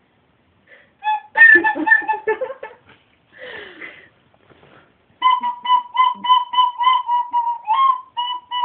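Recorder played haltingly: a few notes in the first seconds, a short pause, then a run of short, repeated toots mostly on one pitch, one note bending upward near the end.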